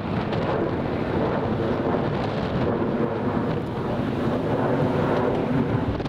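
Boeing 737-800's twin CFM56-7B turbofan engines at climb thrust as the jet passes overhead just after takeoff: a steady, deep roar. Strong wind buffets the microphone over it.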